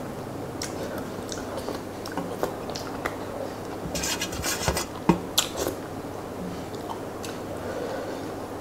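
Fingers wiping the last rice and curry off a steel plate, mixed with wet chewing and lip smacks. A longer scraping sweep comes about four seconds in, followed by a couple of sharp clicks.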